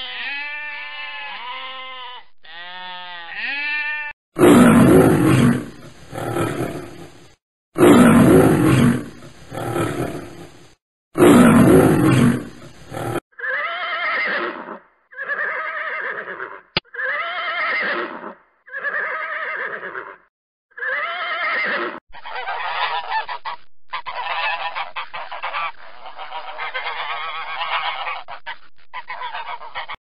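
Sheep bleating at first, then a series of loud animal calls, the later ones repeated about every second and a half.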